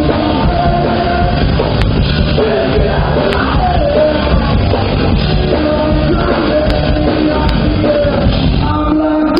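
Live rock band playing loud: electric guitar, bass guitar and drum kit, with a male lead singer singing and shouting over them.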